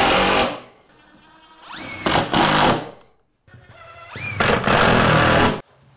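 Cordless drill-driver driving screws into the cabinet's plinth board in three short runs, each starting with a rising whine as the motor spins up.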